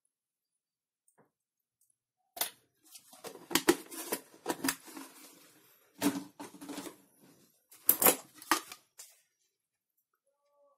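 Clatter and knocks of metal kitchenware being handled, in three bursts over several seconds, with a short ring after some of the knocks.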